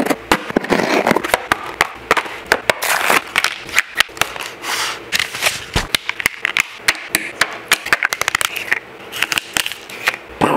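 A cardboard shipping box and a toy's cardboard packaging being opened and handled: a dense, irregular run of crackles, scrapes and sharp clicks.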